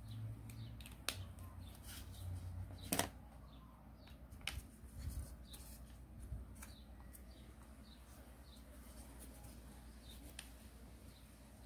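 Origami paper being folded and creased by hand: scattered crinkles and clicks, the sharpest about three seconds in. Short high bird chirps repeat faintly behind them.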